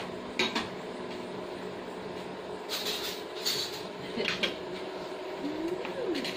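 A few short clinks and rattles of dishes and kitchen containers being handled, over a steady background hum.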